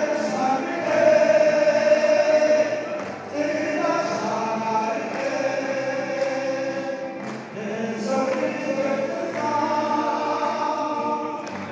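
A group of voices singing together with a male lead singer, holding long notes, while the listeners clap along.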